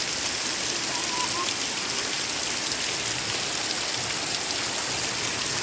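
Heavy rain pouring steadily, an even hiss of rain falling on the ground and roofs.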